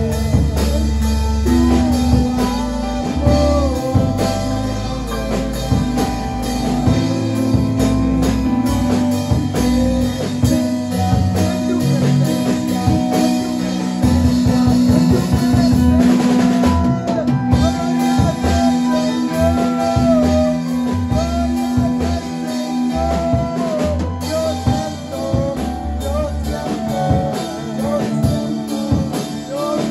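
Live church worship music: a man singing into a microphone through the PA, accompanied by a drum kit and a long held low note.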